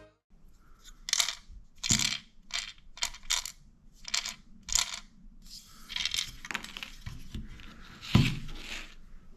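Small hard parts being handled: a string of light clicks and clinks, then rustling and scraping, with a sharper knock about eight seconds in.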